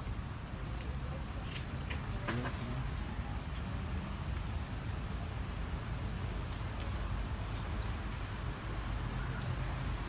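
A cricket chirping steadily in a high, even pulse of about three chirps a second, over a steady low background noise.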